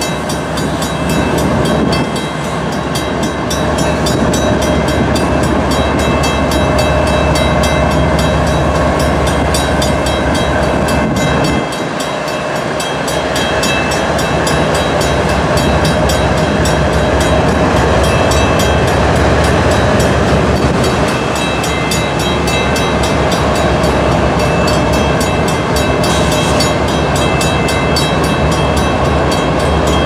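CN freight train passing close by, led by two GE ES44AC diesel-electric locomotives whose GEVO-12 V12 engines run loud and steady over the wheel and rail noise. The level dips briefly about twelve seconds in.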